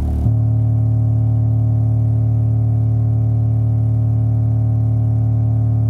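Ural AS-D12A Dual Hurricane active subwoofer playing a steady low sine test tone with a buzzy series of overtones. The tone switches abruptly to another pitch just after the start and then holds steady, as the tone is stepped down to check how far the cone travels.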